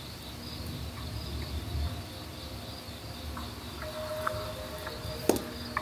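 Crickets chirping steadily, with a low rumble underneath. About four seconds in, steady musical tones start to come in, and a sharp click sounds near the end.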